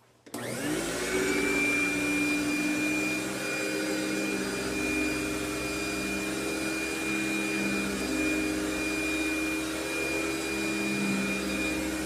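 Eureka Rotomatic Power Team 1743A canister vacuum cleaner switched on about a third of a second in, its motor whining up to speed within a second. It then runs steadily with a high whine as its Vibra Groomer II power nozzle is pushed over carpet.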